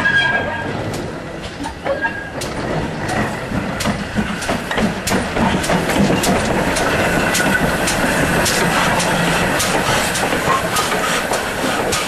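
GWR 5101 Class 2-6-2T steam tank locomotive No.4160 running slowly past at close range, with a quick run of clanks and clicks from its wheels and motion. It grows louder about three seconds in as the engine comes alongside.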